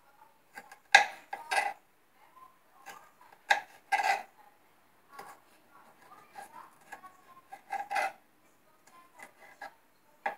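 Kitchen knife slicing a yellow bell pepper on a wooden chopping board: irregular knocks of the blade on the board, a few much louder than the rest.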